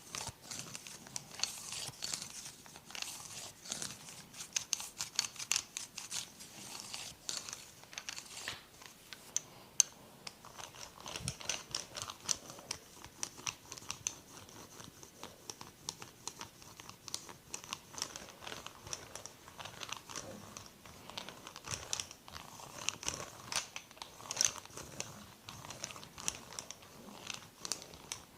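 Hands rubbing and kneading oiled skin in a massage, a dense, irregular run of small wet crackles and clicks.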